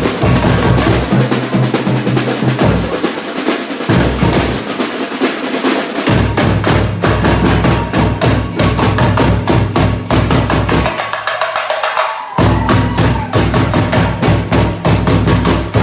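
Samba bateria playing a batucada: deep bass drums pulsing under rapid snare drums and clattering high percussion. The bass drums drop out for a moment a little after ten seconds and come back in about a second and a half later while the higher drums keep going.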